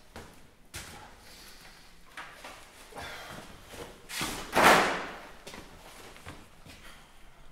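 Handling noise from a BMW i3 battery module being fetched and carried by hand: scattered knocks and clunks, with one loud rush of noise lasting about a second a little over halfway through.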